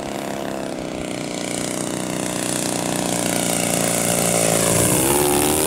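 Engine and propeller of a radio-controlled scale Focke-Wulf 190 model plane running steadily as it flies in low, growing louder as it comes closer. Near the end the pitch dips and then rises again.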